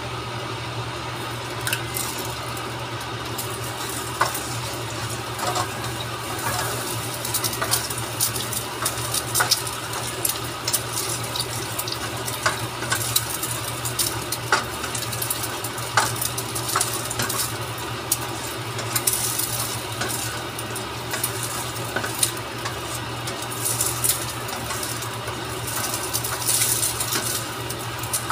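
Egg sizzling in hot oil in a nonstick frying pan as a spatula stirs and scrapes it, with frequent clicks and taps of the spatula against the pan, over a steady low hum.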